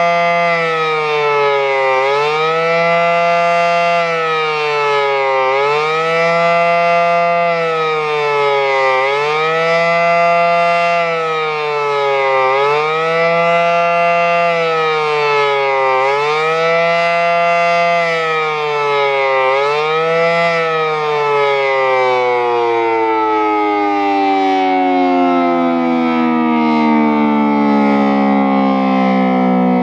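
Federal Signal SD-10 electromechanical outdoor warning siren sounding a fast wail, its pitch dipping and climbing back about every three and a half seconds. About twenty seconds in the cycling stops and the siren winds down, its pitch falling steadily as the rotor slows at the end of the signal.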